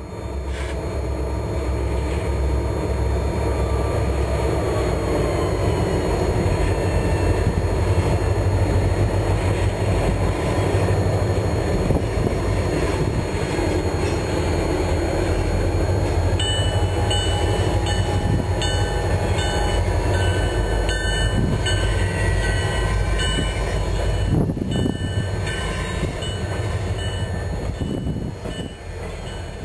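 HO-scale BC Rail CRS20 model diesel locomotives running past with a train of cars: a steady low diesel rumble, with a run of short, high ringing tones through the middle.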